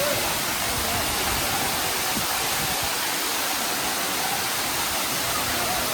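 Waterfall pouring steadily, a dense unbroken rush of falling water.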